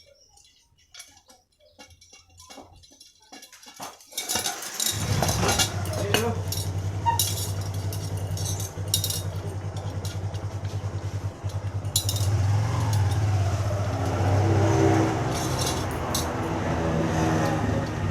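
Light metallic clicks and clinks, then about four to five seconds in an engine starts up and runs steadily.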